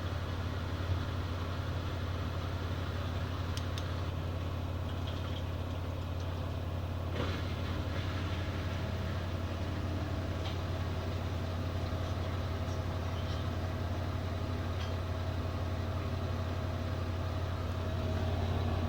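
LG F14B3PDS7 front-loading washing machine on its spin cycle at 1000 rpm: a steady low hum, quiet for a spin, with a faint thin whine coming in about halfway through.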